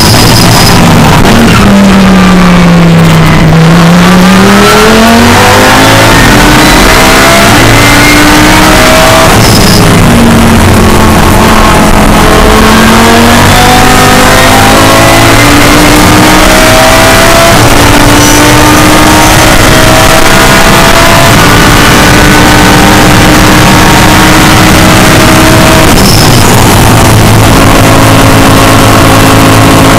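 Audi R8 LMS race car's V10 engine, very loud inside the cockpit at racing pace. Its pitch falls over the first few seconds as the car brakes and drops gears. It then climbs again through the corners, with brief gearshift breaks about ten and twenty-six seconds in.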